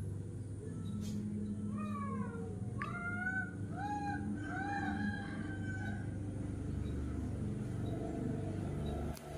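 An animal calling: a run of short pitched calls, some falling and some rising then falling, over about four seconds.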